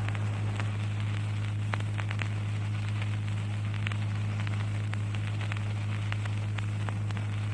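Background noise of a sound recording: a steady low electrical hum with hiss and scattered faint crackles.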